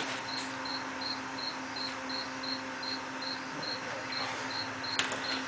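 An insect chirping steadily, a short high note about three times a second, over a faint steady hum, with one sharp click near the end.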